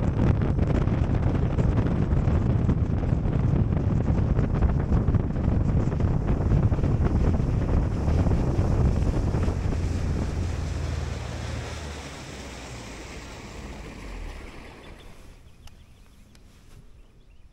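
Bass boat running at speed across a lake: heavy wind buffeting the microphone over the rush of water along the hull. It dies away steadily over the last several seconds.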